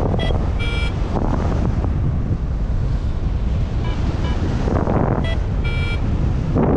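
Airflow buffeting a GoPro microphone in flight on a paraglider, a steady low rushing. Over it, a flight variometer gives short high electronic beeps in small groups, a couple of times: the vario's climb tone, the sign of rising air.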